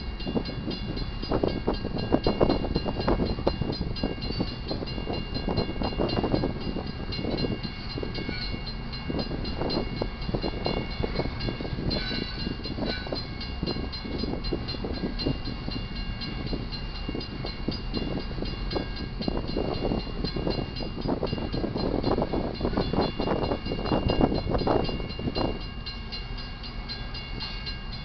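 Loaded freight cars rolling past, steel wheels clattering and banging over the rail joints and crossing, with the rumble easing off for the last couple of seconds.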